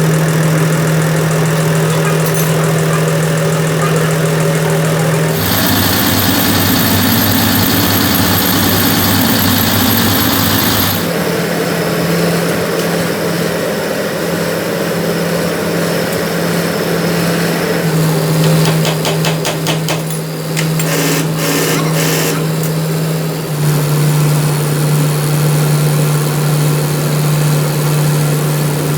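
A motor or engine running steadily with a constant hum. Its pitch and tone change abruptly about five seconds in, near eleven seconds, and again near eighteen and twenty-four seconds. From about five to eleven seconds a brighter hiss and a high whine join it, and a rapid ticking comes in around eighteen to twenty-one seconds.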